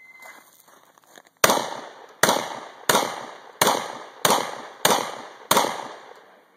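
Shotgun firing seven rapid shots, roughly one every two-thirds of a second, each with a short echo trailing off. A faint short beep, typical of a shot timer, sounds just before them.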